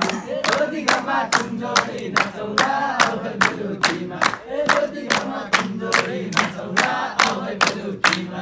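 Group of young men singing a Nepali dohori song together, clapping their hands in a steady beat.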